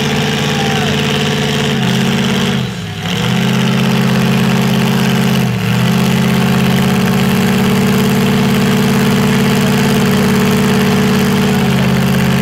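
Engine of a lifted mud truck on tractor-tread tires running loud and steady at a held pitch. It dips briefly about three seconds in and again just before six seconds.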